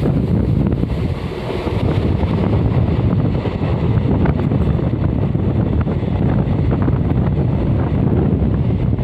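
Steady wind buffeting on the microphone over the low rumble of a moving DEMU (diesel-electric multiple unit) train, heard from its open doorway.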